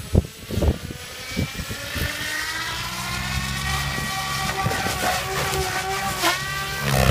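SAB Goblin 700 electric RC helicopter spooling up. The motor's whine rises in pitch over the first few seconds, then settles into a steady whine over the rotor's low buzz, and grows louder near the end. A few low thumps come in the first second.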